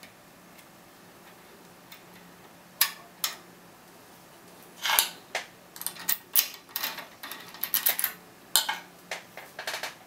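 Lock picks and a tension tool clicking and scraping in the keyway of a brass Bricard Médial radial pin cylinder. Two sharp metal clicks about three seconds in, then a quick, irregular run of clicks and scrapes from about five seconds on as the tools are worked and drawn out.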